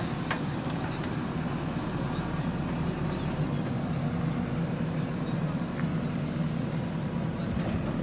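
JCB 3DX backhoe loader's diesel engine running steadily as the machine drives slowly over a dirt road.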